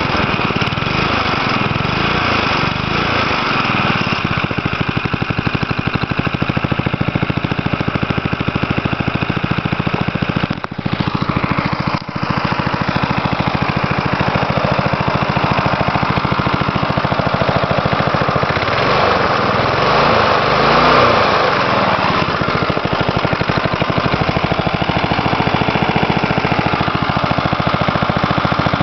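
1977 Briggs & Stratton 3 hp, 127 cc flathead single-cylinder lawn mower engine running after a cold start. It stumbles briefly twice, about eleven and twelve seconds in, and its speed wavers up and down around twenty seconds in.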